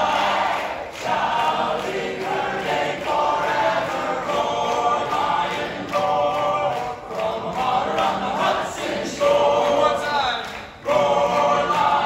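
Male a cappella group singing in close harmony: several voices holding and moving through chords together, with short breaks between phrases.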